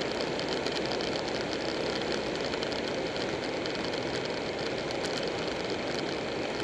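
Steady rush of wind and road noise on a camera mounted on a Buell 1125R motorcycle riding at a constant speed, with the bike's liquid-cooled V-twin running underneath without revving up or down.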